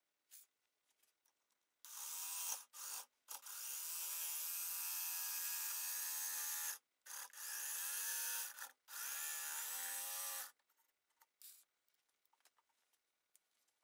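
DeWalt jigsaw cutting through the wall of a segmented walnut-and-maple vase. It runs in several stretches of a few seconds each, starting about two seconds in and stopping around ten seconds in, its motor pitch wavering as it cuts. Only a few faint knocks follow.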